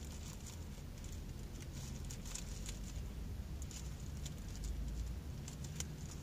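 Low steady hum of a car cabin with scattered faint clicks and ticks.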